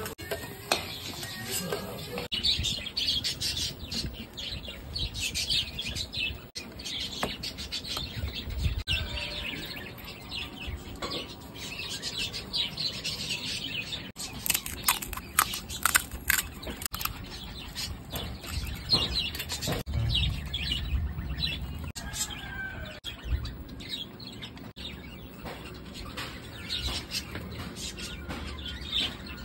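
Small birds chirping and twittering throughout, with a run of sharp clicks and clatters about halfway through.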